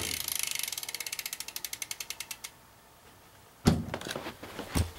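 Rear Quando hub on a BMX bike ticking as the rear wheel freewheels, a rapid even clicking that slows and stops after about two and a half seconds. The hub has been greased to quiet it. A loud knock follows, then a softer one near the end.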